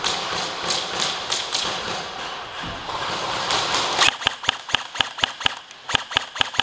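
Airsoft guns firing in an indoor arena: a dense clatter of shots and pellet hits, then about four seconds in a quick string of sharp single cracks, roughly four to five a second, with a brief pause partway through.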